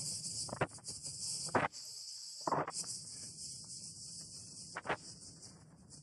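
Cicadas buzzing in a dense, steady, high chorus. A few sharp clicks and knocks stand out over it, the loudest about a second and a half in and again a second later.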